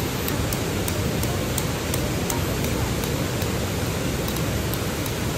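Steady rushing outdoor noise with a low rumble, like wind or running water, and high, thin insect chirps ticking about twice a second over it.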